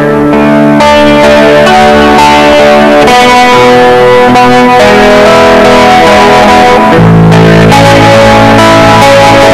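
Guitar-led background music, with chords changing every couple of seconds.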